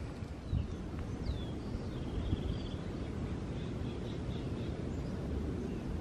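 Outdoor ambience: a few short songbird chirps and a brief trill over a steady low rumble, with a soft thump about half a second in.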